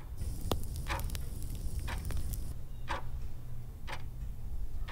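Clock-ticking sound effect from an animated channel intro: sharp ticks about once a second over a steady low rumble, with a few extra clicks and a hiss in the first half.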